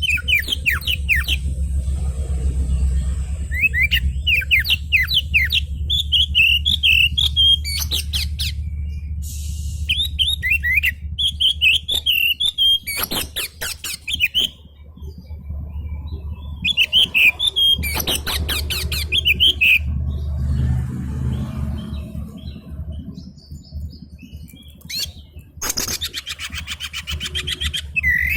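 Oriental magpie-robin (kacer) of the black-breasted 'kemben' type singing an agitated, excited song. Bouts of clear whistled notes alternate with fast harsh rattles, repeated every few seconds over a low steady hum.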